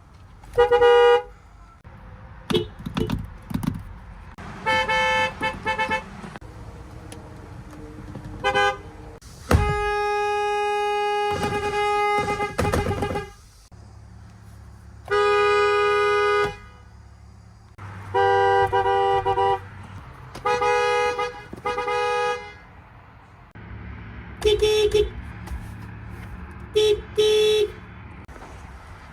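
A string of car horns of different pitches, one car after another, about a dozen honks in all. Most are short beeps and pairs of beeps, with one long blast of about three seconds near the middle. Engine and traffic noise runs between them.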